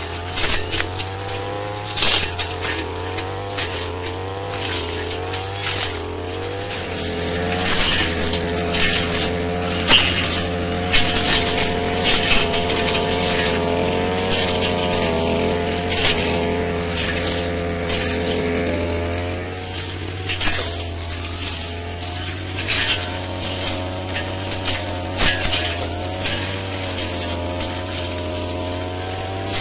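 Petrol brush cutter running, its engine note wavering under load and rising for a stretch before dropping back, as the blade cuts through shrubs. Frequent short sharp strikes of the blade against stems and brush.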